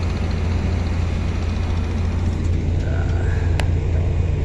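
Heavy yard machinery's engine running steadily, a loud low rumble. A short squeak comes about three seconds in, followed by one sharp click.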